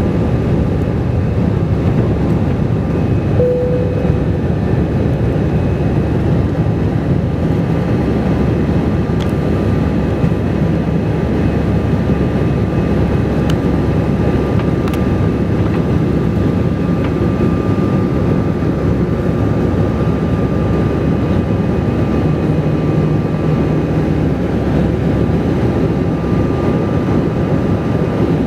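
Steady cabin noise of an Airbus A320 airliner in flight: a low, even rumble of jet engines and airflow, with a faint steady whine above it.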